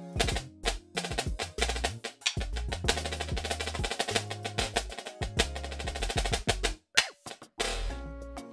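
Marching snare drum (Mapex shell, Evans Hybrid head) played solo with sticks: fast runs of strokes, accents and rolls over a backing track with a low bass line. The drumming stops about a second before the end, leaving the backing music.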